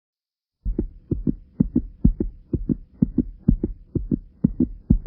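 A person's heartbeat, fast and loud, each beat a close double thump, at roughly two beats a second. It starts about half a second in, over a faint steady hum.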